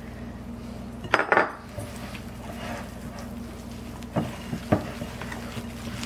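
Glass dishes clinking: a glass measuring cup knocking against a glass mixing bowl as water is added to thick cookie dough. The loudest knocks come about a second in, with two lighter ones a little past four seconds.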